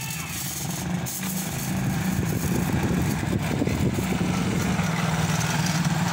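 A steady low mechanical hum that gets louder about two seconds in, with a rough, irregular rustling noise over it for a couple of seconds in the middle.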